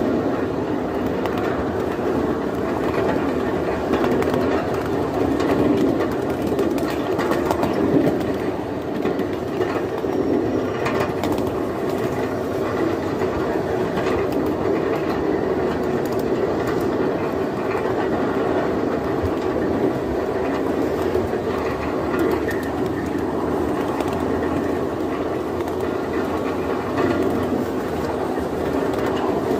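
Ridable miniature railway train rolling along its track: a steady running noise of wheels on rail, with occasional faint clicks.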